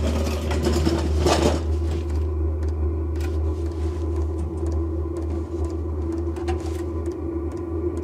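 Diesel air heater running with a steady low hum from its blower, and from about two seconds in a faint regular ticking of about three a second from its fuel dosing pump as it tries to fire again. About a second in comes a brief scuffle as a mechanic's creeper moves under the truck.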